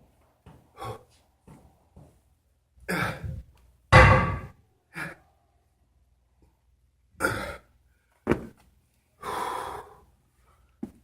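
A person's heavy breathing during exercise: about seven loud puffs of breath at uneven intervals, the loudest about four seconds in with a low thump.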